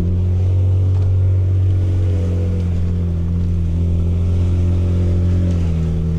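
Ford Ranger Raptor's engine running steadily as the truck drives, a low even hum with a slight dip in pitch near the end.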